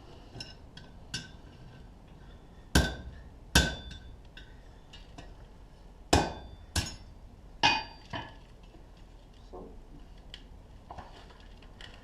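Hammer blows on a quarter-inch round-bar heart over the anvil horn: about six sharp strikes at uneven intervals, with lighter taps between them and a brief metallic ring after each blow, as the heart is tapped into shape.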